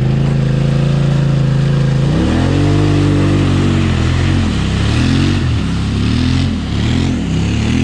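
ATV engine revving hard in deep mud. It is held at high revs for about two seconds, then the revs fall and rise again four or five times as the throttle is worked on and off.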